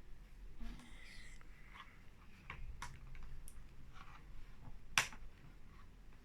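Faint scattered clicks and rustling of plastic toy packaging being handled, with one sharper click about five seconds in.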